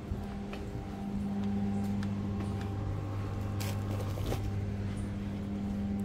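A steady machine hum, low with a higher tone over it, growing a little louder about a second in, with scattered footsteps on concrete.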